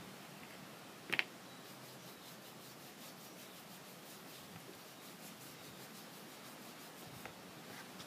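Leather saddle billets handled and rubbed with a small applicator: one short scrape about a second in, then only faint hiss with a couple of light ticks near the end.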